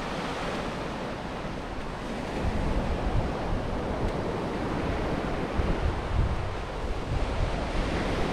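Ocean surf breaking and washing up a sand beach, with wind buffeting the microphone in gusts from about two and a half seconds in.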